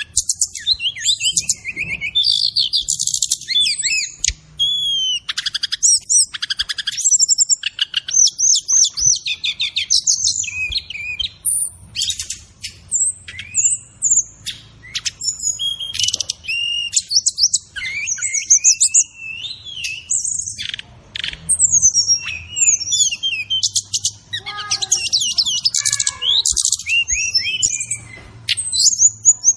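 A sikatan rimba dada coklat (brown-chested jungle flycatcher) singing a continuous, fast, varied song of high chirps, whistled sweeps and trills. The song is mixed with mimicked calls of other birds, and a stretch of lower, falling notes comes about three-quarters of the way through.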